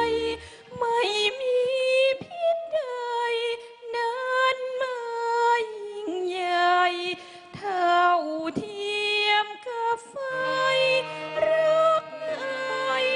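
A woman singing solo, with long held notes and vibrato and short breaths between phrases. A low sustained accompaniment comes in underneath about ten seconds in.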